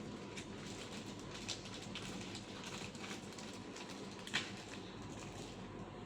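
Scattered light clicks and taps over a steady low room hum, the sharpest tap a little over four seconds in.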